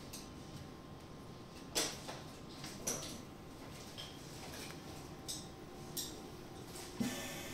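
Dräger Primus anesthesia machine running its self-test: a few irregular sharp clicks, about five in all, over a faint steady hum, with a duller knock near the end.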